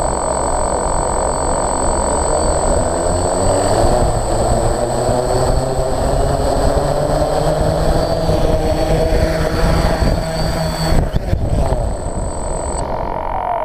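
Helicopter running: steady engine and rotor noise with a high, steady turbine whine. The sound breaks up briefly about eleven seconds in, and the high whine cuts off near the end.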